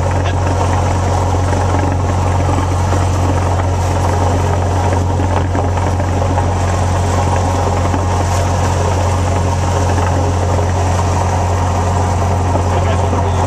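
Single-engine light airplane's engine and propeller running steadily at taxi power, heard inside the cabin as a low, even drone while the plane rolls onto the runway.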